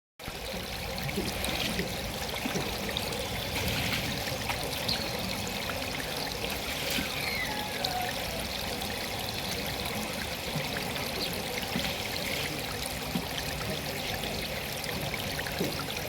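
Water falling and splashing steadily in a continuous rush.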